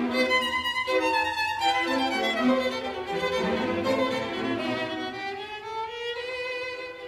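Background music carried by a violin playing held, bowed notes, with a slow upward slide in pitch a little past the middle.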